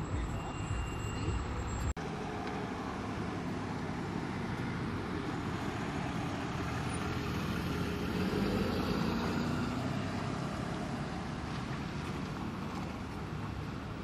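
Street traffic: steady road noise of passing cars, swelling as a car drives past close by about eight seconds in. The sound breaks off for an instant about two seconds in.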